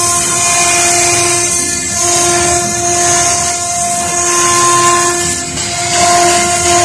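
Stone CNC router's spindle running with a steady high whine as its bit engraves marble, with a hiss of cutting over it.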